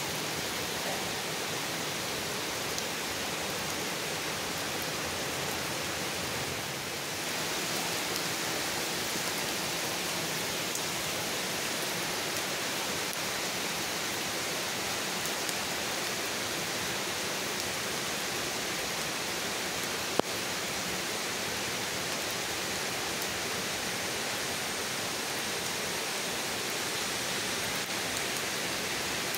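Steady rain falling on leafy trees and grass, an even hiss throughout, with one sharp click about two-thirds of the way through.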